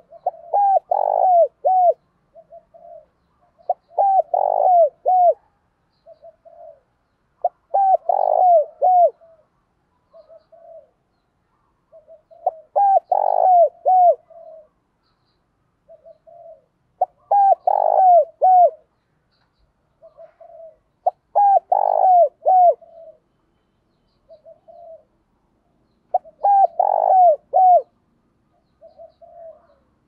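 Spotted dove cooing: a loud phrase of several coos roughly every four seconds, seven in all, with softer single coos in between. It is a decoy dove's challenge call, used to draw wild doves in to fight.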